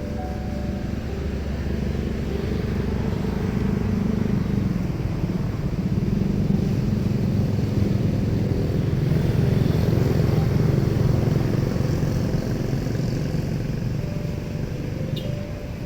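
Airliner jet engines rumbling as a plane passes. The deep roar swells, is loudest about two-thirds of the way through, then fades away.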